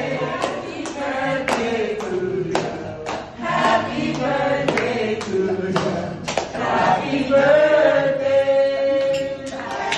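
A group of voices singing a birthday song in chorus, with steady hand claps keeping time; the song ends on a long held note.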